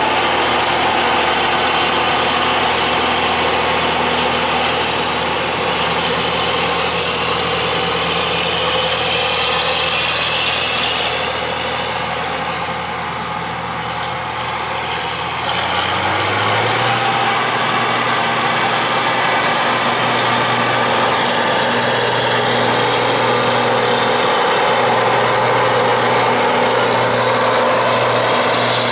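Allis-Chalmers Gleaner N6 combine harvester running steadily while harvesting corn, its engine and machinery making a continuous drone. About halfway through, the engine note steps up in pitch and the sound gets louder.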